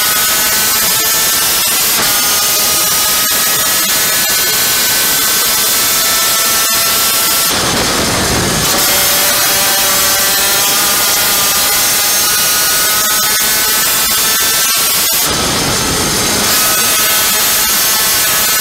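Onboard sound of a superkart's VM 250cc two-stroke engine running at high revs, a hard buzzing whine that keeps climbing in pitch and drops back in steps. Twice, about eight and fifteen seconds in, the engine note breaks up for about a second into a rough rush of noise.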